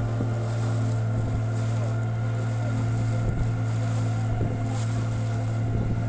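Boat engine running at a steady drone, with water rushing past the hull.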